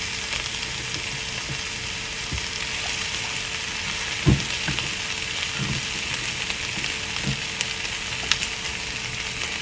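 Frozen chicken wings, rinsed and laid in a nonstick frying pan with no oil, sizzling steadily as they sear. A few soft low knocks come through the sizzle, the loudest about four seconds in.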